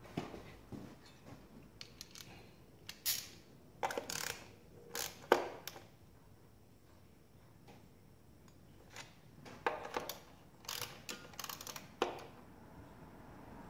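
Metal hand tools clicking and clanking in a car's engine bay: scattered short sharp clicks in a cluster a few seconds in and another near the end, with a quiet stretch between.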